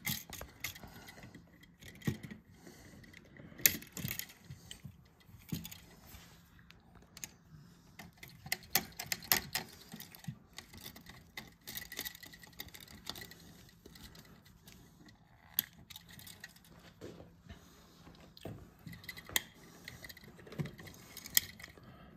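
Irregular small metal clicks and clinks as a screwdriver works a light switch's terminal screws and the switches' metal mounting straps knock together while they are wired.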